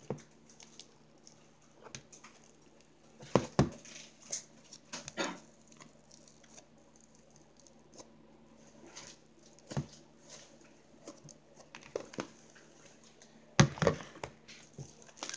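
Homemade slime being handled and poked, giving scattered short sticky pops and clicks, with a cluster of louder ones about three and a half seconds in and again near the end.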